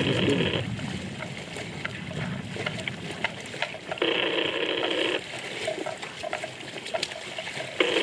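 Water buffalo grazing in shallow water, with small clicks and crackles from grass being torn and chewed. A loud buzz of unclear source comes in bursts of about a second: at the start, in the middle, and again at the end.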